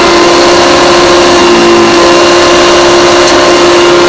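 1975 Hoover Convertible U5002 upright vacuum cleaner running, its motor giving a loud, steady whine.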